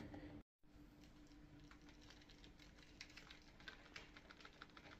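Near silence: room tone with a faint steady hum, and faint irregular light clicks and taps through the second half.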